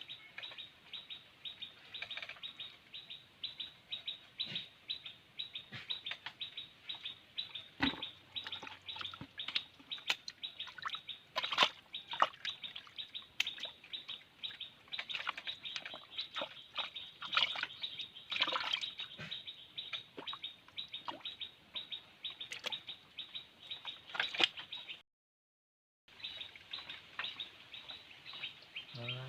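Small birds chirping: a dense, continuous run of short, high chirps. The sound cuts out completely for about a second near the end, then resumes.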